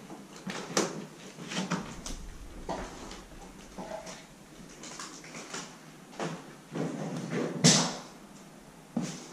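Footsteps and scuffs on a littered floor with irregular knocks and scrapes, the loudest knock about three-quarters of the way through, and a brief creak near the middle.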